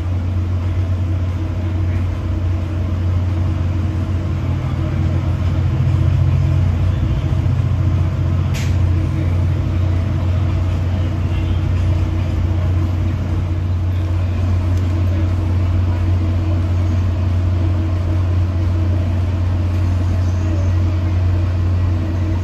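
Steady low drone of a Tri-Rail commuter train heard from inside the passenger coach while it is moving, with a steady hum above it. A single sharp click sounds a little under 9 seconds in.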